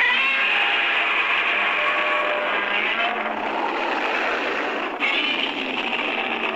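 Recorded Godzilla roar sound effect from a Godzilla model, starting suddenly and running on as a harsh, sustained screech. It is thin with no bass, and it shifts about three and five seconds in.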